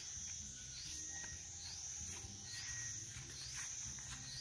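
Steady high-pitched insect drone, crickets or cicadas in the dry grass and trees, with short falling chirps repeating about once a second and a low rumble underneath.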